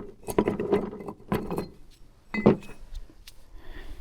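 Small metal parts and a tool clinking and clattering as they are handled, in three or four separate short bursts.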